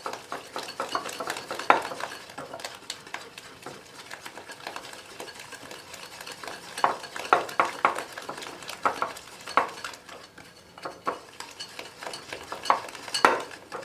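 Hand whisk beating eggs with icing sugar in a bowl, a steady scraping with irregular clicks of the wires against the bowl, working the sugar until it dissolves.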